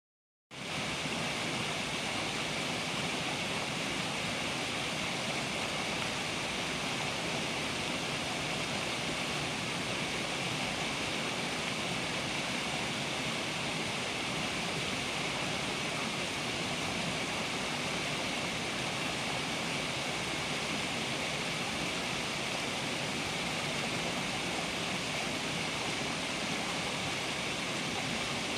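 Small waterfall pouring over rocks into a pool: a steady, even rush of falling water that starts about half a second in.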